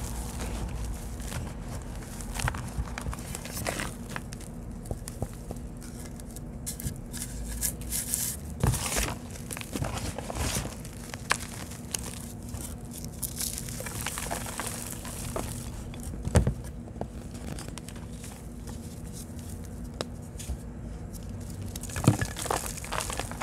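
Gloved hands squeezing and crumbling dry, powdery reformed blocks, a steady crunching and crinkling with powder pattering down. Sharper cracks stand out as pieces snap, the loudest about 16 and 22 seconds in.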